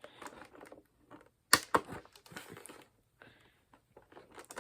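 Irregular plastic clicks and taps from handling toy action figures and their packaging, with one sharp, louder click about one and a half seconds in.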